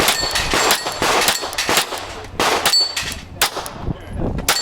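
Rapid, irregular pistol fire from Glock pistols, with steel plate targets clanging and ringing as they are hit.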